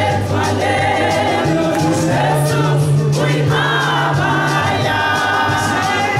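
A congregation of women singing a gospel hymn together in chorus, swaying as they sing, over a low held bass note that steps up in pitch about one and a half seconds in.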